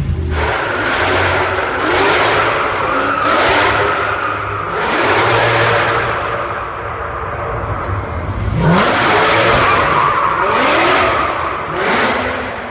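A car drifting inside a concrete parking garage, its tyres squealing in about six loud bursts. Each squeal comes with a short rising rev of the engine.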